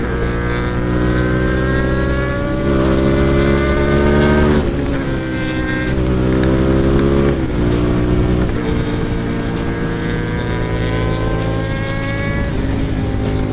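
Hyosung GT650 N's V-twin engine running hard at highway speed, its note climbing steadily and dropping back several times as the revs change.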